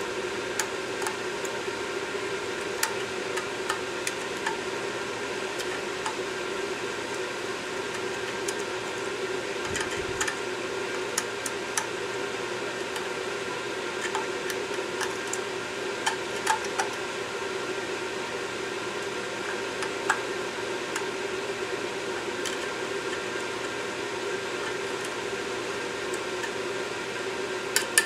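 Light clicks and scrapes of a small hand tool on a removed EGR valve as it is cleaned, scattered irregularly over a steady fan-like hum.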